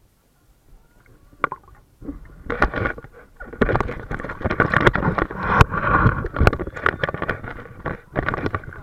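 Water splashing and sloshing with irregular knocks, starting about two seconds in after a quiet moment.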